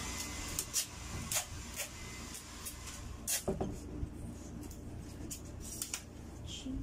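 Scattered sharp clicks and knocks of a camera tripod being unfolded by hand, its legs, leg braces and plastic clips clacking as they are pulled open, over a steady low hum.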